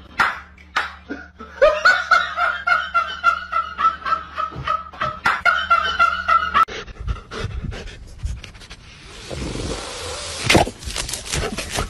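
A dog panting in quick rhythmic huffs, with a steady whining note running over them, for about the first seven seconds. After a cut, noisy rustling with a few sharp clicks near the end.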